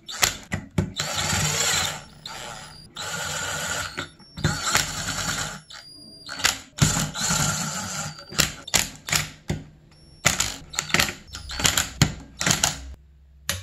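Cordless drill-driver running in several short bursts of a second or so, driving hex-head screws down into an engine's water pump cover, followed in the last third by a run of sharp, irregular clicks.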